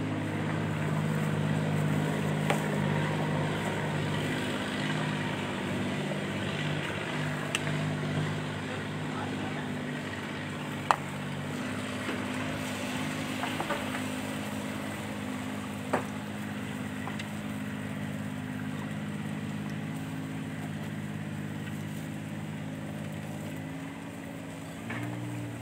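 Hot oil sizzling steadily as banana fritters deep-fry in a large metal wok, over a continuous low hum. A few sharp clicks of a utensil against the wok.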